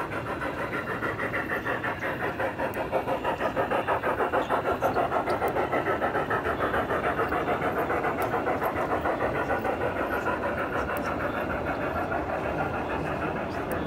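Model steam locomotive chuffing in a steady rhythm of about five beats a second, a little louder in the middle and easing slightly toward the end.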